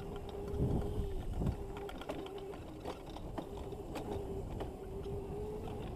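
Razor MX650 electric dirt bike's chain-driven motor whining at a steady pitch as it rides over bumpy grass, with irregular clicks and rattles from the chain and frame and a low rumble underneath.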